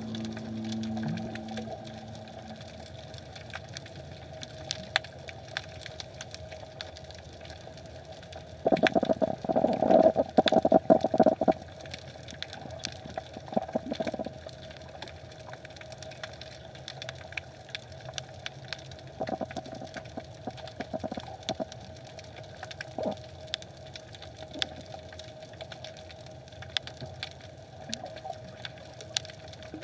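Underwater sound picked up by a submerged camera: a steady low hum with scattered sharp clicks, and a loud cluster of rapid low knocking pulses about nine to eleven seconds in, with a few shorter bursts later.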